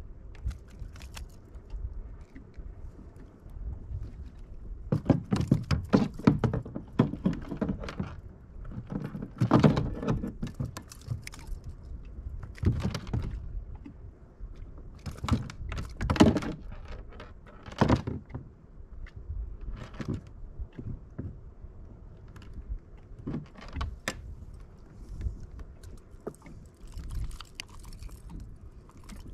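Irregular knocks and rattles of gear being handled aboard a fishing kayak. They come in short clusters a second or two long, with the busiest stretch in the first half and a few single sharp knocks later.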